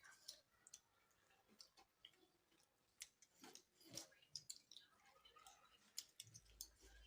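Faint eating sounds: chewing and scattered small clicks, with a few louder ticks around the middle, as a meal of chicken gravy and rice is eaten.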